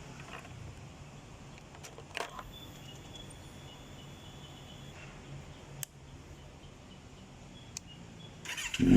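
A faint low hum and a few sharp clicks, then near the end a Kawasaki Z900's inline-four engine comes in loud and rising.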